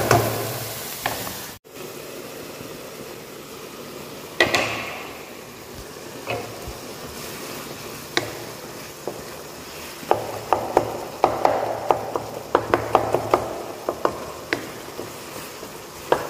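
Spatula scraping and knocking against a nonstick wok while chopped onions, green chillies and tomatoes sizzle in hot oil. The knocks are scattered at first and come thick and fast over the last several seconds of stirring.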